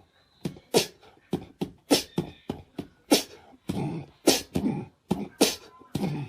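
A pet making a rapid, irregular series of short, sharp explosive breaths through the nose and mouth, about two a second.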